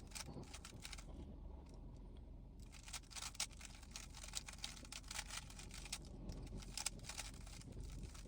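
GAN 15 speedcube being turned by hand: quick plastic clicks of layer turns in irregular runs, with a short pause about a second in.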